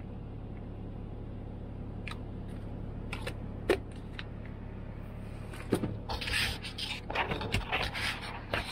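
Steady low hum of the semi truck's idling engine. Over it come a few light clicks and a sharper knock, then from about six seconds in a run of clattering and scraping as a food container and utensil are handled to spoon pico onto the burgers.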